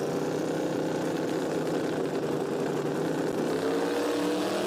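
Drag cars' engines, a Chevrolet Malibu station wagon and a Chevrolet Corvette, running at a steady pitch on the starting line, then rising in pitch about three and a half seconds in as they launch down the strip.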